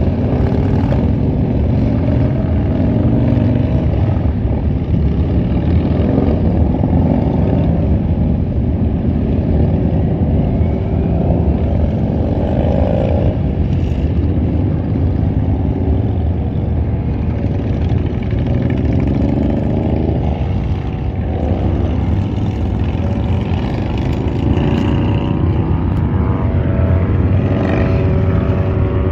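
A long line of motorcycles rumbling past one after another, engines revving up and easing off as each bike accelerates away, so the engine pitch keeps rising and falling over a constant low drone.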